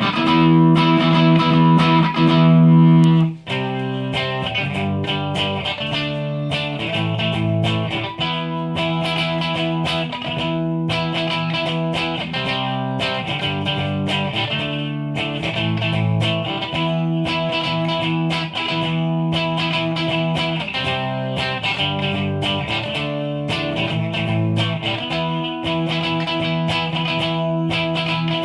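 Electric guitar played through a Line 6 POD Pro amp modeler: a loud chord rings for about three seconds and cuts off, then a steady passage of picked notes and chords follows.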